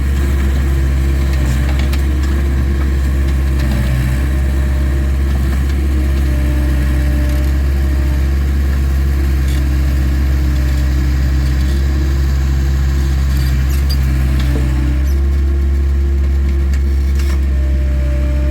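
Takeuchi TL26 skid steer's diesel engine running steadily, its note shifting slightly about fifteen seconds in.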